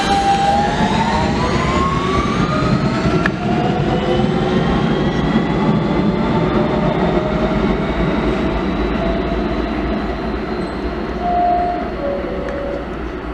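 R160 subway train accelerating out of the station: its traction motors give an electric whine that climbs in pitch over the first few seconds, then drops back and climbs again, over a steady rumble of wheels on rail.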